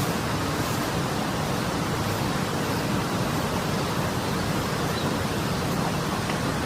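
Steady, unbroken rush of water pouring through an irrigation diversion dam.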